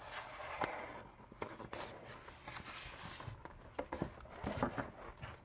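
Pages of a picture book being turned and handled: paper rustling with scattered soft taps and clicks.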